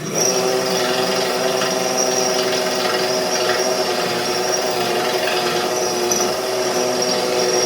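Electric drill running steadily under load, boring through the steel of a winch bumper, with a constant motor whine.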